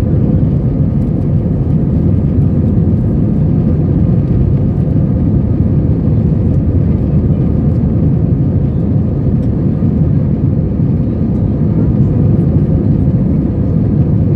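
Steady low rumble of an Airbus A320's jet engines and rushing airflow, heard inside the passenger cabin during the climb after takeoff.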